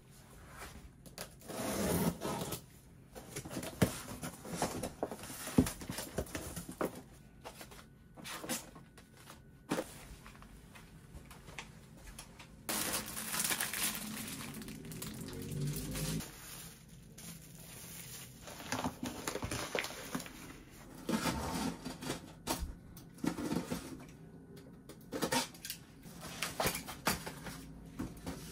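Cardboard boxes and their contents being handled and unpacked: irregular knocks and scrapes of cardboard, with a few seconds of rustling packaging about halfway through.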